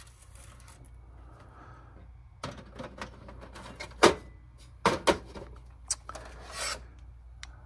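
Handling noise from a VCR and a VHS cassette: a few sharp plastic clicks and knocks, the loudest about four seconds in, and a short rustle, over a faint low hum.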